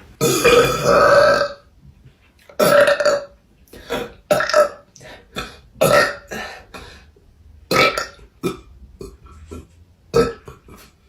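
A young woman burping: one long, loud burp of just over a second, then a run of about a dozen shorter burps.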